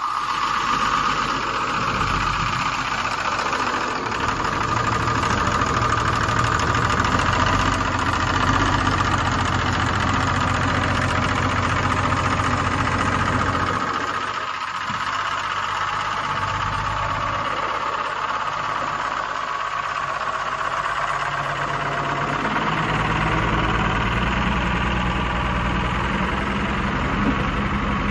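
P-pumped 24-valve Cummins inline-six diesel running at idle in a Clark Michigan 75 wheel loader, with a steady high whine over the engine note. The low engine note shifts a few times.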